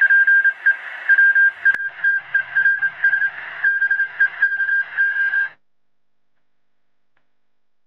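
Morse code from a telegraph key: a high steady beep keyed on and off in short and long pieces over radio static, cutting off suddenly about five and a half seconds in. One sharp click falls near two seconds in.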